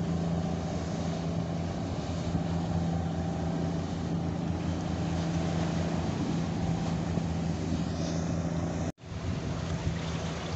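Boat engine running steadily at an even pitch over rushing wind and water noise. The sound cuts out for an instant about nine seconds in and then carries on.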